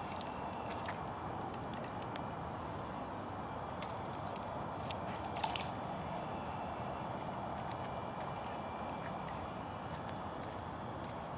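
Crickets trilling steadily in one continuous high thin note, over a steady low hiss, with a few short clicks around the middle.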